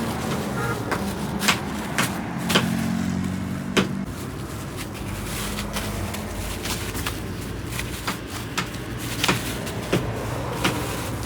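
A motor runs steadily with a low hum whose pitch shifts slightly about four seconds in, over many irregular sharp knocks and clacks.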